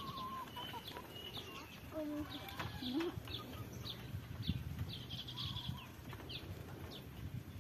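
Small birds chirping faintly, a scattered string of short high chirps, with a couple of lower calls about two to three seconds in.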